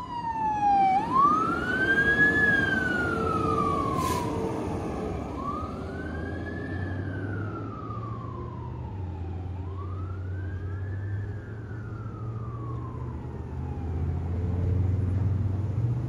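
Fire engine siren on wail, sweeping up and down about every four and a half seconds with a quick rise and a slower fall, fading as the truck drives away.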